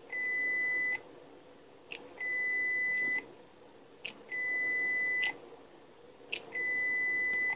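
Uni-T UT71C multimeter's continuity buzzer beeping four times, about a second each, as the test-lead clips are touched together. Each beep starts about a quarter second after the small click of the clips making contact, which is the lag that critics call slow.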